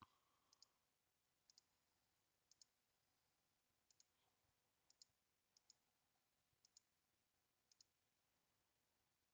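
Faint computer mouse clicks, about one a second, each a quick press-and-release pair, about eight in all, as items are toggled one by one. The background between clicks is near silence.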